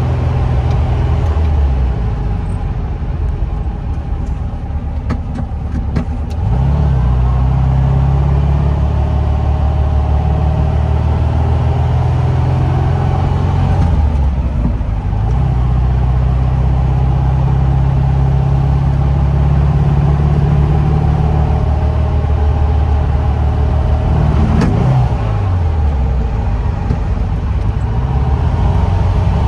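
Porsche 356A's air-cooled flat-four engine running under way, its revs falling and climbing again several times, with long steady stretches between.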